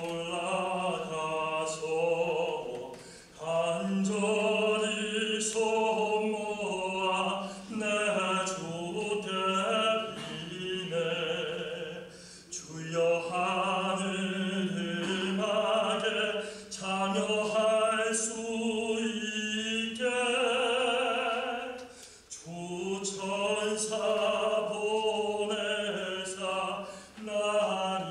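Male vocal quartet singing, in long sustained phrases with brief breaks between them.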